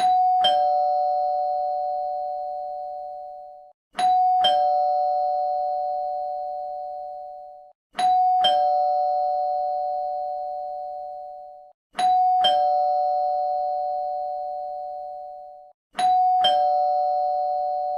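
Two-tone ding-dong doorbell chime rung five times, once every four seconds: a higher note, then a lower note half a second later, each ringing on and fading slowly.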